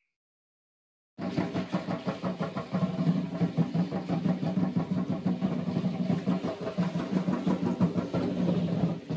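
Drum-led music for a Mexica (Aztec) ritual dance: a fast, steady percussion beat that starts abruptly about a second in, after a moment of silence.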